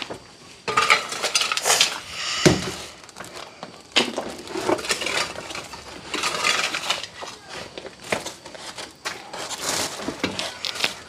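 Hard objects clattering and clinking as they are handled, an irregular run of knocks, with a heavier thud about two and a half seconds in.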